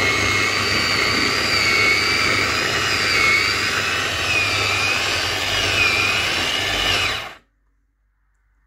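Electric food processor running, grinding a wet mix of peppers, herbs, garlic and ginger: a loud, steady motor noise with a high whine that wavers slightly in pitch. It cuts off suddenly about seven seconds in.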